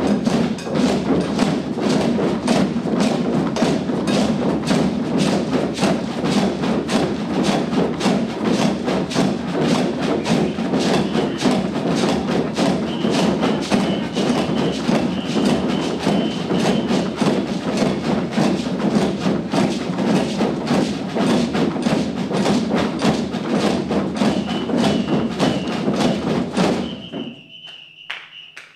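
Drum circle playing bucket drums, snare-type drums and shakers, struck with sticks and hands in a fast, steady rhythm. The ensemble stops together near the end, leaving a few scattered hits and a held whistle.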